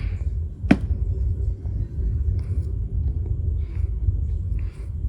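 Low rumbling handling noise as a brass padlock is worked on with a screwdriver during disassembly, with one sharp metallic click less than a second in and a few faint ticks after.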